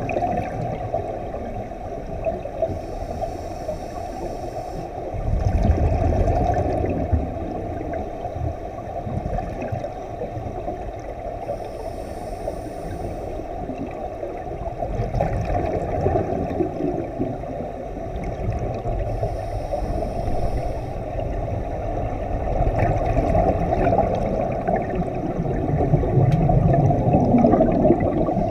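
Muffled underwater rumble and gurgling of a scuba dive, with the bubbling of air rising through the water, heard through a camera's waterproof housing. It swells now and then, and a faint hiss comes back about every eight seconds.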